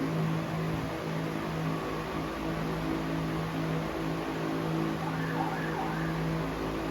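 Cemaf Oscilante 60 cm, 250 W wall fan running: a steady motor hum under the rush of air from its blades.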